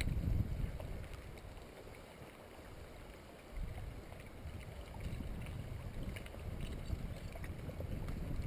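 Low rumble of wind buffeting the microphone, with water lapping against a small aluminium boat. It eases off for a couple of seconds and picks up again suddenly near the middle.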